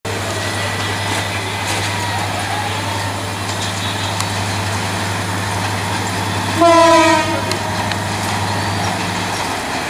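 Diesel locomotive of an approaching commuter train running with a steady low engine hum, then giving one short horn blast about two-thirds of the way through.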